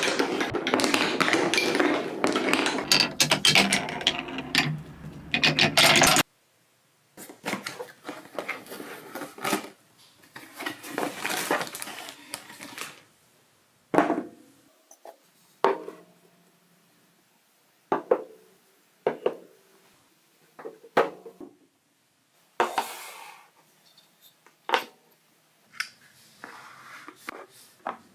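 Balls rolling and clattering down stepped TrixTrack wave-slope marble-run track in a rapid stream of clicks. The clicking cuts off suddenly about six seconds in, then comes back as separate short runs of clicks with quiet gaps between them.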